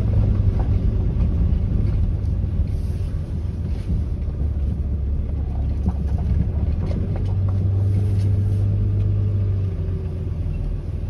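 Truck driving slowly on a dirt road, heard from inside the cab: a steady low engine and road rumble with a few light knocks.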